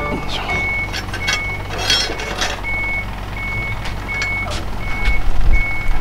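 A vehicle's reversing alarm beeping steadily in one high tone, about one beep every three-quarters of a second. A few sharp clicks come one to two and a half seconds in, and a low rumble swells near the end.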